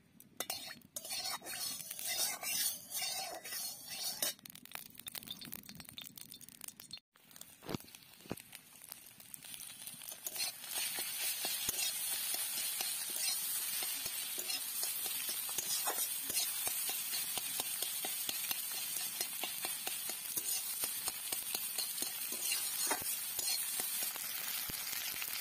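Food frying in hot oil in an aluminium kadai, with a metal spatula scraping and stirring against the pan. The first few seconds hold irregular scrapes and taps; from about ten seconds in there is a steady sizzle as egg and potato pieces are stirred.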